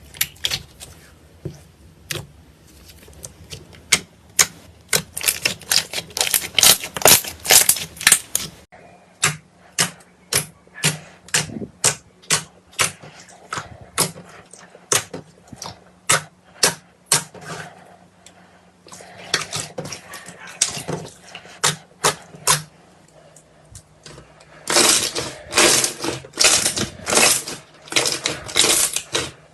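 Slime being squeezed and poked by hand, giving a run of sticky clicking pops, several a second. The clicks change abruptly about 9 seconds in and grow denser again near the end.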